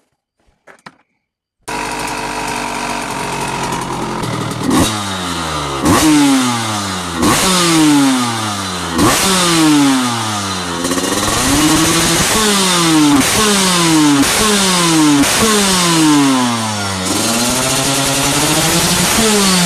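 Kawasaki KX125 two-stroke single-cylinder engine with an FMF Fatty expansion chamber and Pro Circuit 304-series silencer, coming in suddenly about two seconds in at idle, then blipped over and over, each rev snapping up and falling away, with a couple of slower, longer revs.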